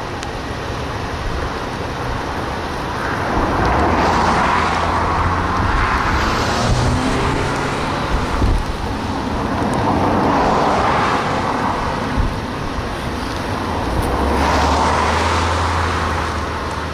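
Three cars passing close by on the highway, one after another. Each is a swell of tyre and road noise that rises and fades over a couple of seconds, with a low engine hum underneath.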